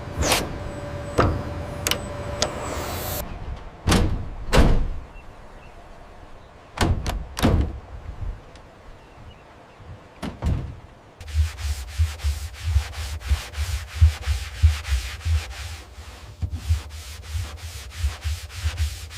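Scraping and rubbing work on metal: several sharp separate strokes and knocks, then from about eleven seconds in a quick, regular run of rubbing strokes over a pulsing low rumble.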